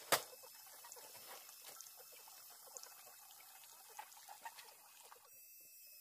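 A sharp thump, then rustling and small crackles of a filled sack being handled and set down, stopping about five seconds in.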